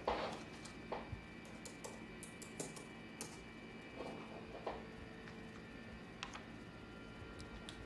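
Hands handling sheets of paper on a glass desktop: scattered light taps, clicks and rustles, the loudest a knock right at the start, over a faint steady hum.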